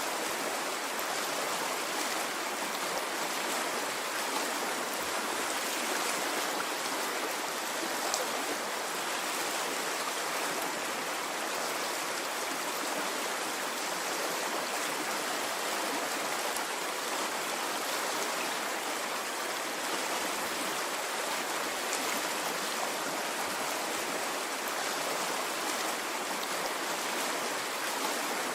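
Water in a stream flowing steadily, an even rushing hiss with no swells and a few faint ticks.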